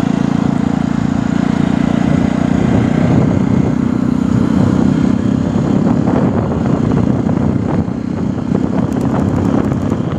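Jawa 42's single-cylinder engine running steadily under way, heard from the rider's seat over a steady rushing noise.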